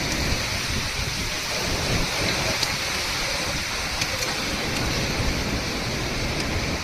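Storm wind and rain: a steady rushing noise with wind buffeting the microphone, and a few faint ticks.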